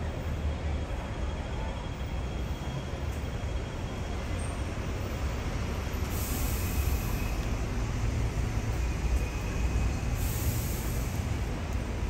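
Steady low vehicle rumble, with two short hisses about six and ten seconds in.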